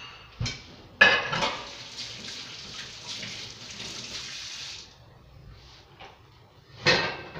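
A dish clatters in a kitchen sink, then the tap runs in an even stream for about four seconds and is shut off abruptly; another clatter comes near the end.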